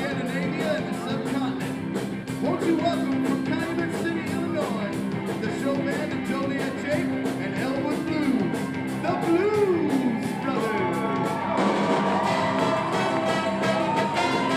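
Rock-and-roll band music with singing over a steady beat. About twelve seconds in, the cymbals grow louder and new held notes come in.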